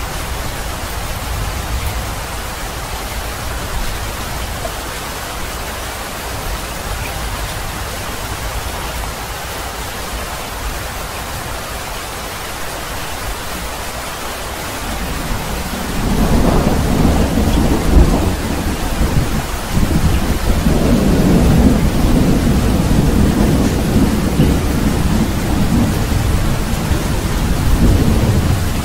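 Steady rain falling as an even hiss; a little past halfway a long roll of thunder comes in and rumbles on through the rest, loudest a couple of seconds after it starts.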